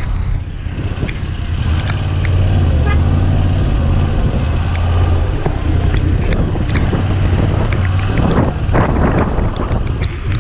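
Motorcycle engine running steadily, with wind and road noise rushing over it and scattered sharp ticks. Near the end the engine hum drops away and a louder rushing swell comes in.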